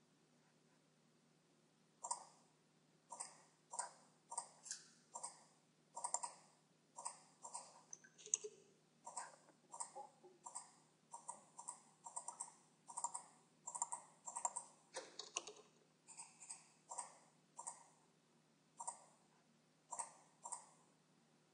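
Faint clicking of a computer mouse and keyboard, roughly one or two short clicks a second, often in quick pairs, starting about two seconds in.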